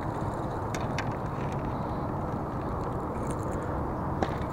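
Steady low outdoor rumble on a body-worn action camera's microphone, with a few light clicks and one sharper click near the end.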